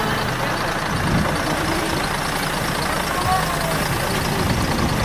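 Motor vehicle engines running steadily as cars drive slowly through a lot beside a parked coach bus, with people talking faintly in the background.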